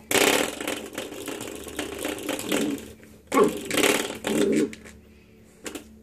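Spring door stopper being flicked and batted, its coil twanging and buzzing in a rapid rattle. There are two bouts: a long one at the start and a shorter one about three seconds in.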